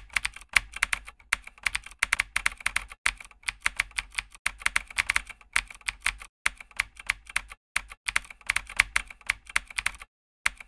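Typing sound effect: rapid keystroke clicks in bursts with short pauses, stopping about ten seconds in.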